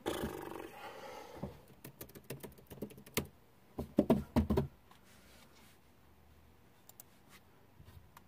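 Handling noises at a desk: a rustle at first, then a quick run of light clicks like keyboard typing about two seconds in, a cluster of heavier knocks and taps around four seconds in, and a few scattered clicks near the end.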